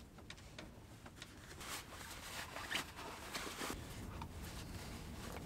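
Faint rustling of blankets and bedding with scattered light knocks and clicks, as they are rummaged out of a plywood storage box; the handling is busiest in the middle.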